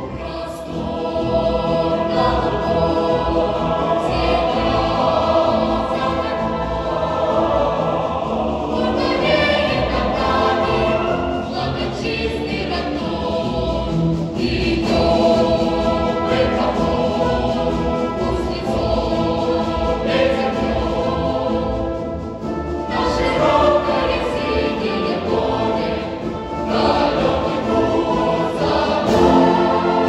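Combined children's and naval cadet choir singing a march in unison over a military concert band's brass and wind accompaniment.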